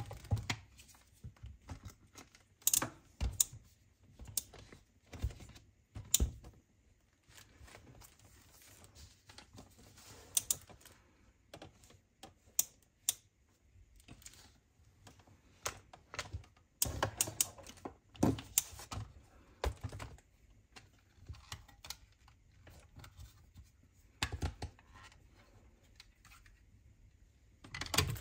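Irregular clicks and soft knocks in small clusters with short pauses between, like keys or small hard plastic parts being pressed and set down.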